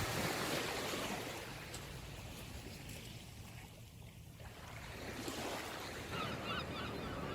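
Sea waves washing in and drawing back. A wave surges at the start and fades away, then another swells up. Near the end a bird starts calling in a quick repeated series.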